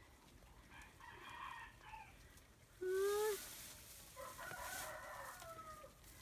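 Rooster crowing: a longer call from about four seconds in that holds and then falls at the end. About three seconds in there is a short, louder animal call.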